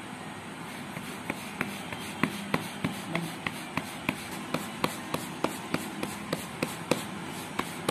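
Hands patting a ball of rice-flour bhakri dough flat on a flour-dusted stainless steel plate: short sharp slaps in a steady rhythm of about three a second, starting about a second in.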